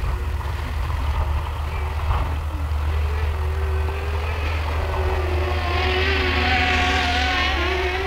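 Potensic Atom SE quadcopter in flight, its propellers giving a wavering whine that grows louder about six to seven seconds in, over a steady low wind rumble on the microphone.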